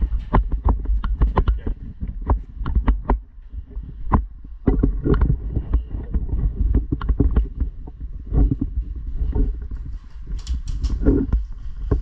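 Footsteps of a player moving quickly over the ground, about two to three steps a second and uneven, with heavy rumble from wind and handling on a body-worn camera's microphone.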